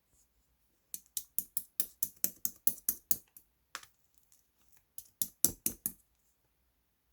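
Quick, sharp clicks, about four or five a second: a run of about a dozen, a lone click, then a shorter run of five.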